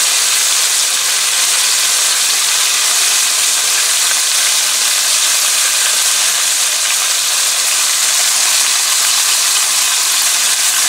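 Thin-pounded, flour-dusted boneless chicken thighs sizzling steadily in hot light olive oil in a pan over a high flame.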